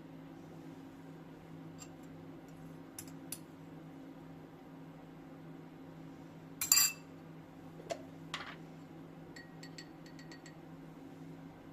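Dishes and utensils being handled: a few light clicks, a louder clatter about seven seconds in, a couple of knocks, then a quick run of small ringing clinks, over a steady low hum.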